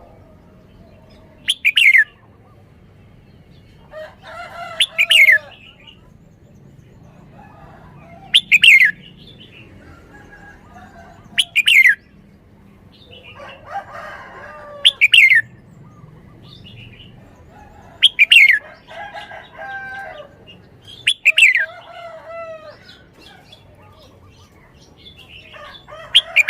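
Red-whiskered bulbul singing: a short, loud phrase about every three seconds, with softer chattering notes between the phrases.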